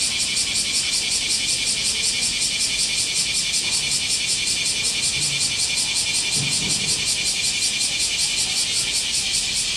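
Cicadas in a loud, steady summer chorus: a high, hissing drone that pulses rapidly and evenly.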